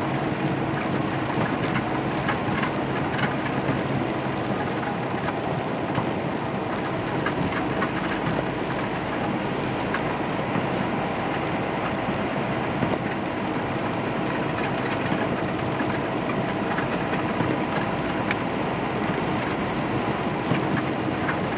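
Steady drone inside a semi-truck's cab as it drives: the diesel engine running with tyre noise from the wet pavement.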